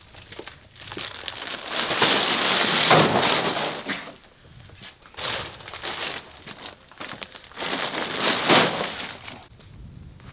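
Plastic feed sack rustling and crinkling as it is hoisted and carried, in three bouts of a couple of seconds each, the first the loudest.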